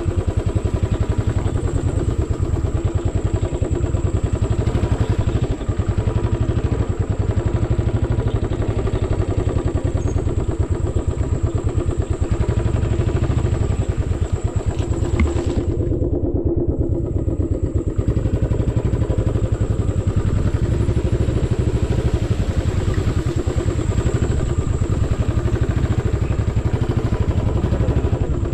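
Royal Enfield motorcycle engine running steadily under way on a rough track, its exhaust beat a fast even pulse. The sound goes muffled for a moment just past halfway.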